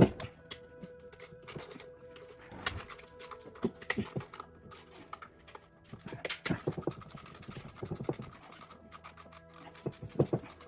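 Irregular clicks, scrapes and knocks of hand tools and metal parts being worked on a truck engine, with a sharp knock at the start and a busier run of clicks in the middle, over faint steady background music.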